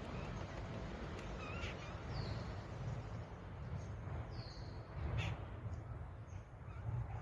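Birds calling faintly: a few short, high chirps and a brief harsh call about five seconds in, over a steady low rumble.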